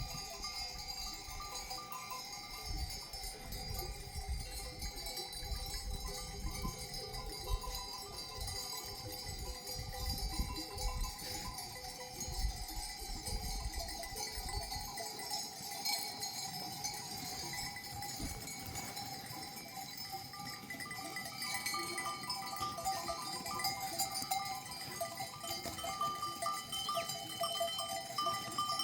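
Many bells worn by a grazing flock of sheep clinking and ringing together without pause, with a low rumble through the first half.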